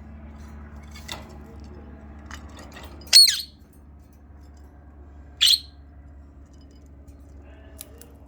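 A pet bird giving two short, sharp, high-pitched calls about two seconds apart, the first the louder.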